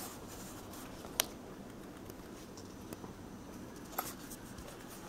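A few sharp taps and clicks over a faint steady room hum, the loudest a little over a second in and another about four seconds in: a cat moving about and pawing at a closed door.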